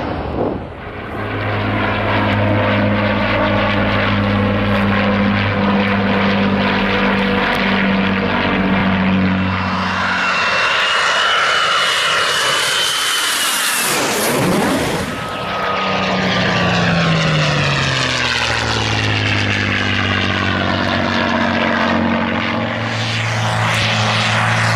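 Four-engine turboprop propellers droning steadily at a low pitch. About ten seconds in, a jet fighter flyby whines past with a sweep and a falling pitch. After it, a steady propeller drone returns.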